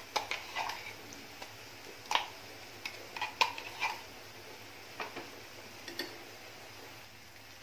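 Steel spoon tapping and scraping against a steel mixer jar as thick ground masala paste is scooped out into a kadhai: scattered light clicks, thinning out after about four seconds.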